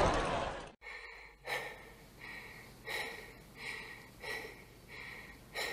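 A person breathing quickly and audibly, short puffs in and out about every three-quarters of a second, the tense breathing of anxiety. Store chatter fades out just before the breathing begins.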